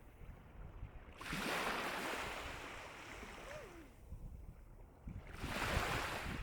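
Gentle sea waves washing onto the shore, two surges: one swells about a second in and slowly fades, the next rises near the end.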